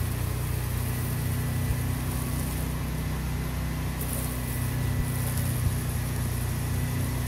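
Pressure-washing rig's engine running at a steady speed, pumping to a wand spraying the roof, with a faint steady hiss above the low drone.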